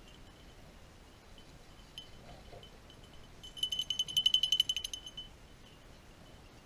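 Small collar bell on a hunting beagle jingling rapidly for about a second and a half, a little past halfway through, with a few faint single tinkles of the same ring before it.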